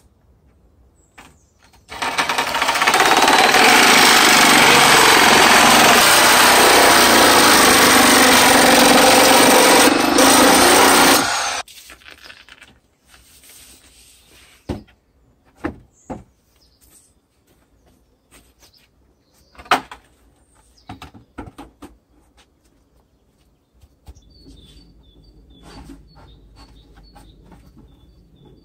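Corded reciprocating saw cutting through a foam-core sandwich panel: a loud, steady run of about nine seconds that starts about two seconds in and stops abruptly. It is followed by a few scattered knocks.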